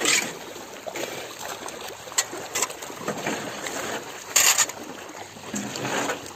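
Crocodiles splashing in a shallow feeding pond, with a shovel scraping across wet concrete. Several short, sharp noisy bursts stand out, the loudest about four and a half seconds in.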